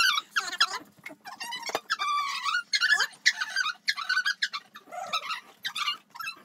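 A pet animal's rapid, squeaky calls: warbling chirps and whines that rise and fall, going on almost without a break.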